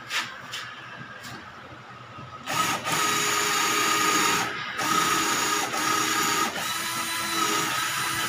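Black and Decker GC1800 18-volt cordless drill/driver boring a masonry bit into a soft concrete hollow-block wall. After a few light clicks, the motor starts about two and a half seconds in with a steady whine and eases off briefly a few times. The bit is getting through this soft block, though the drill has no hammer action.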